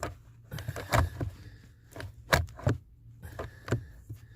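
A few sharp plastic clicks and knocks as the HVAC mode door cam is turned by hand between the defrost and vent positions, checking it for stiffness or binding.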